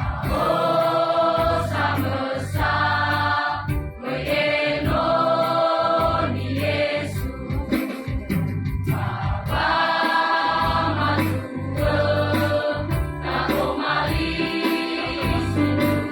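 Choir singing held chords in parts, phrase after phrase with short breaks between, over a steady low bass accompaniment.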